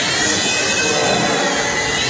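Sky Master 4-channel radio-control toy helicopter's electric motor and rotor blades whirring. It is a steady rushing noise with a faint high whine.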